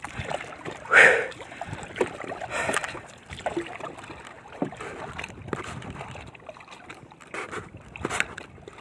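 Wooden hand paddle splashing through the water beside a small outrigger canoe, in several uneven strokes, the loudest about a second in.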